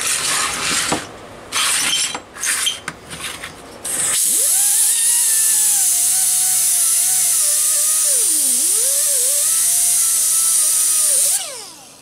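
Small metal clicks and knocks as a sanding disc is fitted to a pneumatic right-angle grinder. About four seconds in, the grinder starts and runs with a steady whine and loud air hiss for about seven seconds. Its pitch dips once near the middle, and it spins down near the end.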